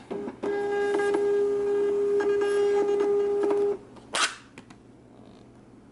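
Zebra UPS LP2844 direct thermal label printer printing a 4x6 label: its feed motor gives a steady whine with faint clicks for about three and a half seconds, then stops. A short tearing sound follows about four seconds in as the label is torn off at the printer's exit.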